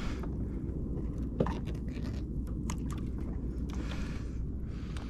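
Steady low wind rumble on an action-camera microphone at sea, with scattered small clicks and knocks from handling a fishing rod and spinning reel; one sharper knock about a second and a half in, and a brief rush of hiss near the end.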